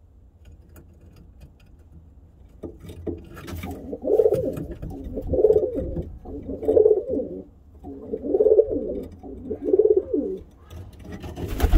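Domestic pigeon cooing: a run of about five low, throaty coos, each about a second long and a little over a second apart, starting about three seconds in.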